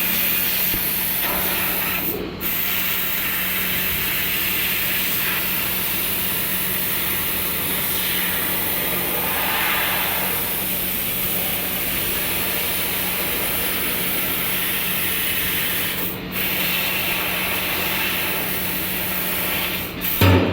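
Senfeng CNC laser cutter cutting 3 mm sheet metal: a steady loud hiss of the cutting jet over a faint low hum, breaking off briefly twice. A short low thump near the end.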